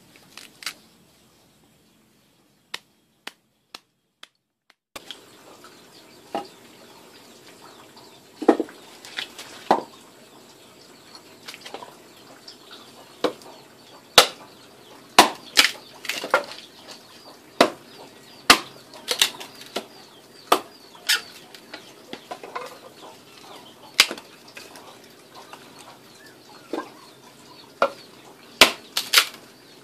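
Repeated sharp knocks of a blade chopping firewood against a log, irregular strokes about one to two a second, starting about eight seconds in.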